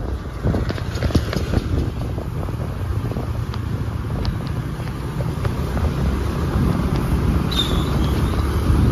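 Motorbike ride through town traffic: the engine running steadily under a loud rush of wind on the microphone, with other scooters around. A short high squeal sounds about seven and a half seconds in.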